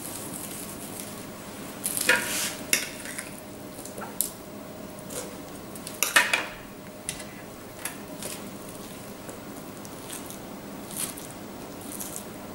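Spoon clicking and scraping against a glass dish and a pepper as raw ground beef is scooped and packed into a long pepper, with soft squishes of meat: a handful of short, separate knocks and scrapes, the loudest about two and six seconds in.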